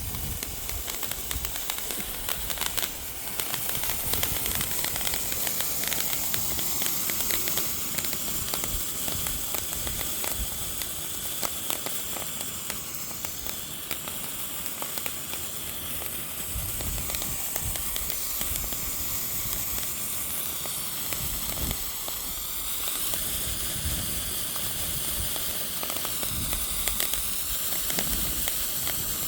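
Novelty firework flare burning with a steady, continuous hiss, with wind buffeting the microphone.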